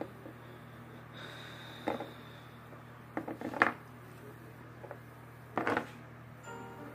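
Small plastic toy figures knocking and clattering on a wooden tabletop in three brief bursts, over a steady low hum. Music begins near the end.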